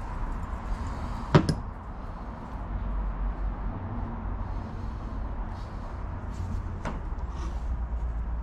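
Hand and tool work on top of a 5.3 L V8 engine during intake manifold removal: a single sharp knock about a second and a half in and a lighter click near the end, over a low steady rumble.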